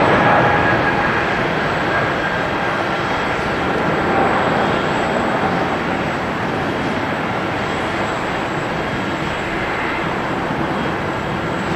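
Boeing 777-300 airliner's twin jet engines at takeoff power: a dense, steady jet noise with faint whining tones in it, slowly fading as the aircraft climbs away.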